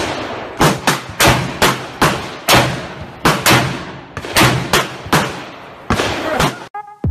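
Handgun shots fired in quick succession, about fifteen sharp cracks in under seven seconds, each echoing off the shooting range. Electronic music begins near the end.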